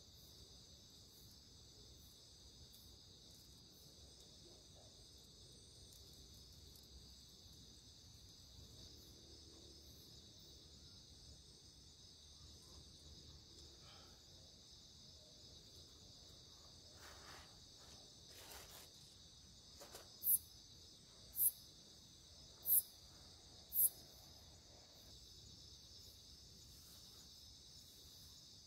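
Steady, even chorus of crickets in a night forest. In the last third, four sharp high clicks about a second apart stand out louder than the chorus.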